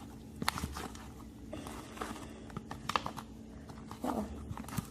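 Homemade glue slime being stirred in its container, giving irregular sticky clicks, snaps and squelches as it pulls away from the sides.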